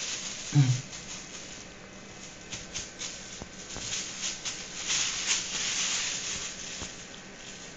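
Thin plastic bag crinkling and rustling as a cat rolls on it and paws at it, busiest about five to six and a half seconds in. A brief low voice sounds about half a second in.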